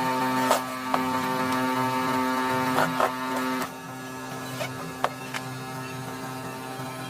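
Steady electrical hum with many evenly spaced tones. It gets quieter about three and a half seconds in, with a few sharp knocks or clicks over it.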